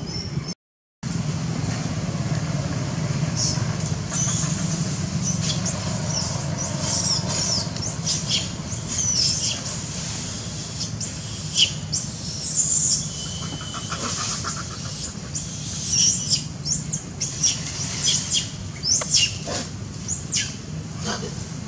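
Many short, high-pitched squeaky chirps, coming irregularly over a steady low background rumble. The sound drops out briefly just under a second in.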